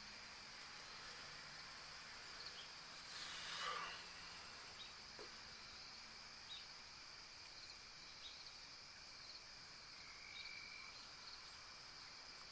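Near silence: a faint steady high hiss, with one brief swish about three seconds in and a few faint scattered ticks.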